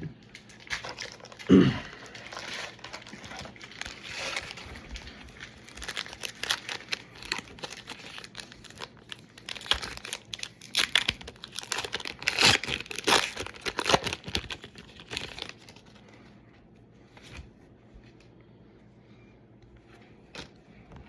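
Foil Pokémon booster pack wrappers crinkling and tearing open, a dense run of crackling that dies down about fifteen seconds in. A brief loud low thump about a second and a half in.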